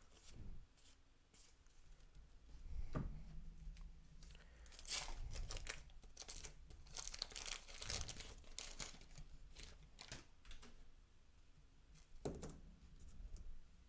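Faint rustling and crinkling as 1987 Topps baseball cards and their wax-pack paper are handled, with short scattered scrapes and crackles.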